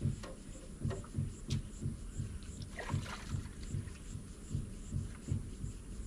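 Water slapping against the hull of a small fishing boat, an even low knocking about two to three times a second, with a few faint clicks.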